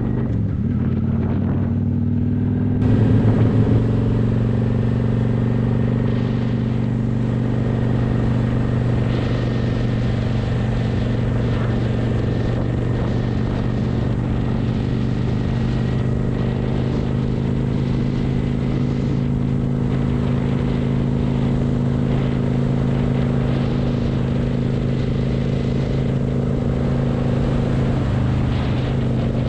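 Cruiser motorcycle engine running steadily at cruising speed, heard from the rider's seat with wind noise over the microphone. It is briefly louder about three seconds in.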